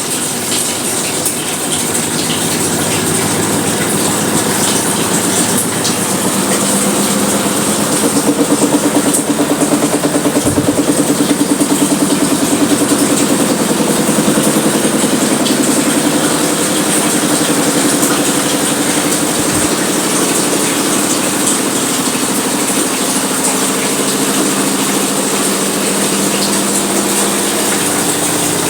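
Sharp ES-T86CL washing machine running its wash cycle: a steady motor hum with a fast even pulse as the tub churns the load, running smoothly.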